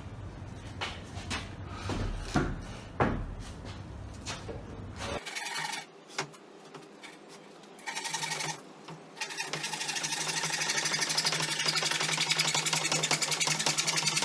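Handsaw cutting through a softwood pallet board: a few halting starting strokes, then fast, steady back-and-forth sawing through the second half. Before it, a few footsteps and two sharp knocks about two and three seconds in.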